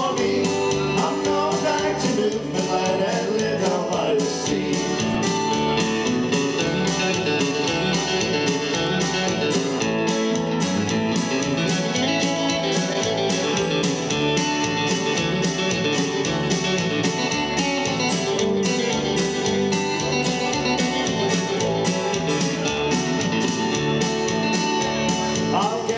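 Acoustic guitar and electric bass guitar played live in a country-folk song, with a steady strummed rhythm. The middle is mostly an instrumental passage, and a man's singing comes in at the start and again near the end.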